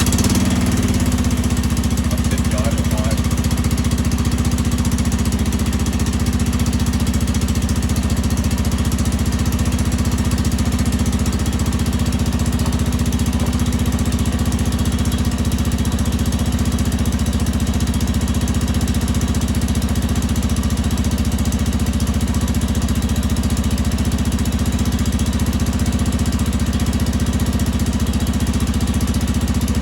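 Honda TLR200's four-stroke single-cylinder engine running steadily at idle in gear, spinning the output shaft that carries the welded-on sprocket.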